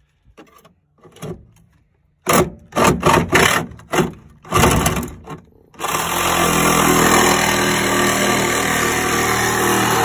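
Milwaukee reciprocating saw cutting through a car's sheet-steel floor pan. A few short, stop-start bursts come about two seconds in, then from about six seconds in the saw runs steadily through the metal.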